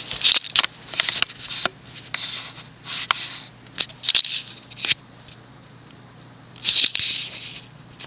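Encon Rattan ceiling fan's 188 mm King of Fans motor running on medium speed with a faint steady hum. Louder irregular clicks and short rustling hiss bursts lie over it, heard several times.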